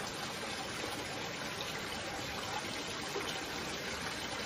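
Steady rush of flowing water in a channel.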